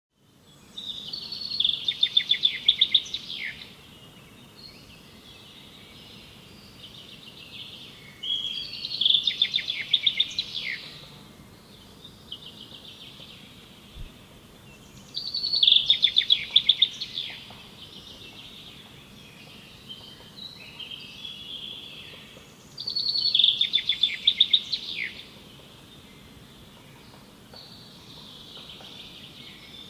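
Wild songbirds singing. One bird gives a loud, fast trilled phrase four times, about every seven seconds, and quieter birdsong carries on in between.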